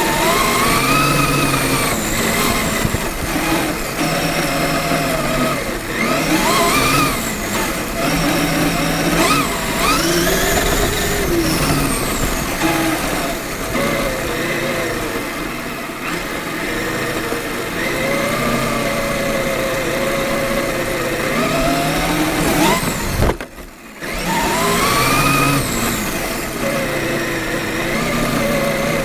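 Traxxas E-Maxx electric RC monster truck's motor and gear drivetrain whining, its pitch rising and falling again and again with the throttle. The whine drops out briefly about 23 seconds in.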